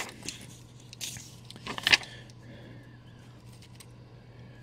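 Pages of a comic book being handled and turned: soft paper rustles and crinkles, the loudest just under two seconds in, over a steady low hum.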